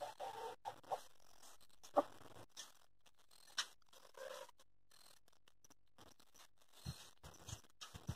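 Faint, mostly quiet: a few scattered soft clicks, and brief clucks from chickens in the coops near the start and about four seconds in.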